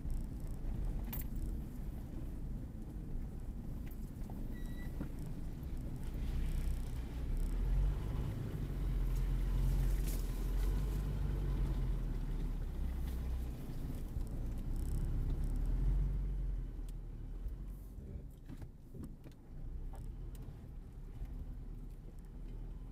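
Jeep Grand Cherokee ZJ's engine running under load as it crawls up a sandy off-road slope, heard from inside the cabin as a low rumble that grows louder through the middle of the climb. Light rattles and knocks come from the cabin as it bounces over the ruts.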